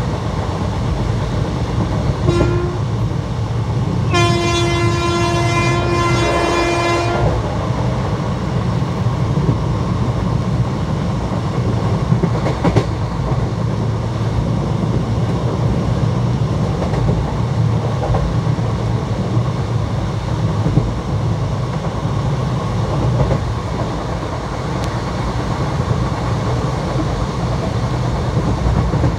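Steady rumble of ICF passenger coaches running along the track. About two seconds in, the WCAM2 electric locomotive gives a short horn blast, then a longer blast of about three seconds.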